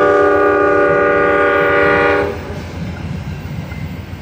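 Amtrak locomotive's multi-chime air horn sounding one long chord that stops a little over two seconds in. Underneath it and after it, the passing train keeps up a steady low rumble and clatter.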